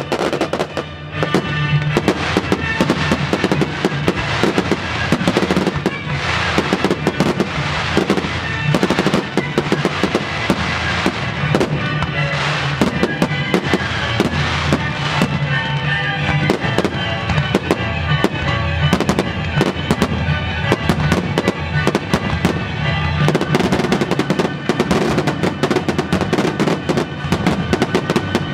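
A fireworks display with rapid, unbroken bangs and crackling of bursting shells, mixed with loud music played for the show; the bangs grow denser near the end.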